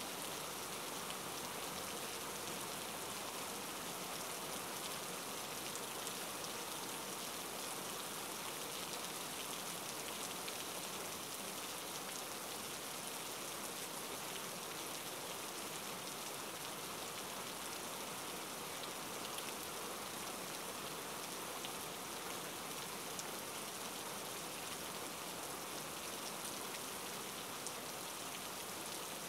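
Steady rain from a thunderstorm falling without a break: an even hiss with faint scattered drop ticks.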